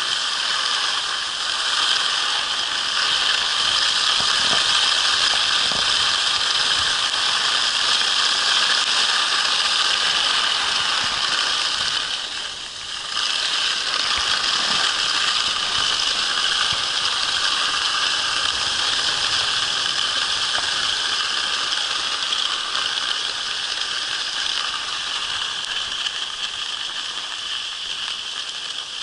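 Skis sliding over hard, crusty snow while a dog tows the skier, a steady scraping rattle that dips briefly about halfway through.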